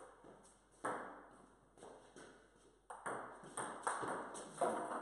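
Table tennis rally: a ping-pong ball clicking off paddles and bouncing on the table in a quick run of sharp ticks, some louder strikes among fainter bounces.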